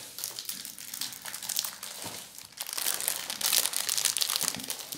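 Clear plastic bag of sugared almonds crinkling as it is handled and opened by hand, growing louder and denser in the second half.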